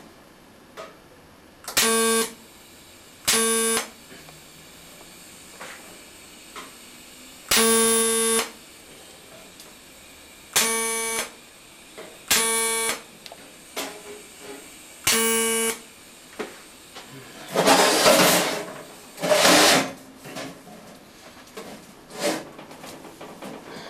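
Arc welding torch striking six short tack welds on stainless steel sheet, each a brief buzz under a second long, spaced a second or more apart. About three-quarters of the way in come two louder, rough rasping noises.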